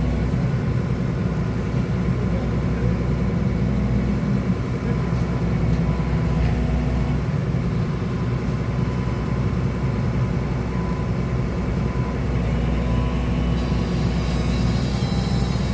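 Excavator's diesel engine running steadily under operation, with a higher-pitched whine joining near the end.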